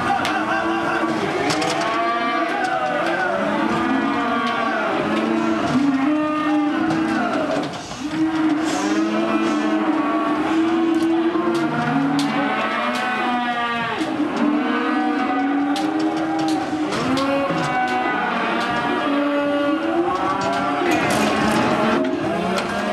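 Many calves mooing and bawling at once, their calls overlapping almost without a break, with occasional short knocks among them.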